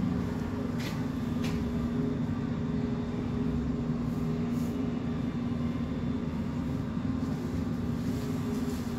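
Steady mechanical hum with several constant tones, with two faint clicks about a second in.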